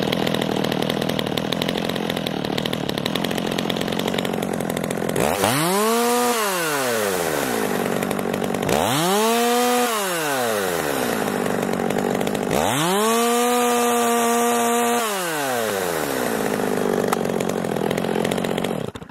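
Stihl MS 200T two-stroke chainsaw idling, then revved up three times, each rev rising in pitch and falling back to idle, the last held at full throttle for a couple of seconds. The engine then stops abruptly near the end. It is running on a newly replaced carburettor with the mixture screws just leaned out, and it now keeps running and revs instead of dying after starting.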